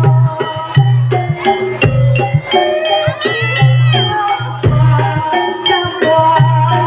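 Live Javanese jaranan music from a percussion ensemble: ringing pitched metal tones over a low tone that repeats about once a second, with a short wavering high melody line about halfway through.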